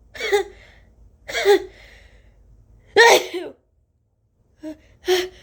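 A woman sneezing, set off by turmeric tickling the inside of her nose: short voiced catching breaths, then the loudest sneeze about three seconds in, and two shorter bursts near the end.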